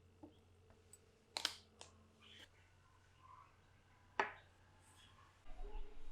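Kitchen utensils and ingredients handled during cooking: a few scattered sharp clicks and taps, the loudest two about one and a half and four seconds in. Near the end a low steady hum starts.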